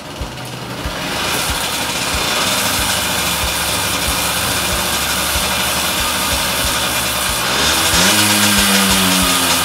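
Yamaha YSR50's small two-stroke single-cylinder engine running, its sound building over the first second or so, then idling steadily. About eight seconds in it is revved briefly, rising in pitch, and falls back toward idle near the end.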